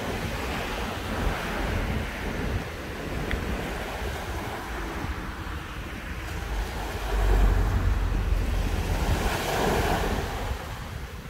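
Small waves breaking and washing up onto a sandy beach, in gentle swells, with wind buffeting the microphone; the wind rumble is heaviest a little past halfway through.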